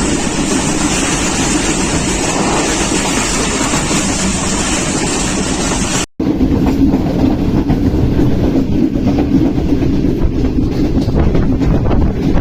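Pakistan Railways Green Line Express passenger train running at speed, a steady rumble and clatter of wheels on rails. The sound drops out for a moment about six seconds in, then carries on deeper and duller.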